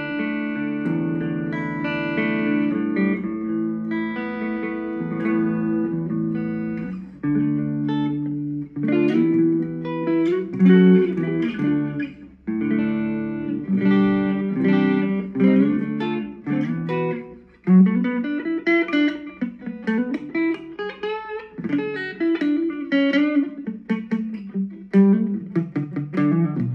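Korean-made Legend Les Paul Custom electric guitar played through an amp on a clean tone: ringing chords at first, then picked melodic lines with string bends in the second half.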